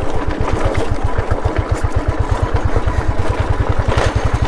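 Royal Enfield Classic 350's single-cylinder engine running with a steady, even beat as the motorcycle is ridden over loose pebbles.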